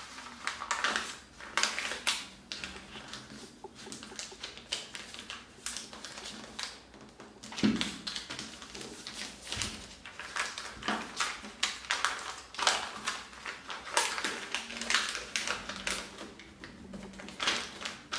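Paper pattern sheets being folded and pressed flat by hand on a cutting mat: irregular crinkling and rustling of paper with small taps, as a dart is folded closed in the pattern.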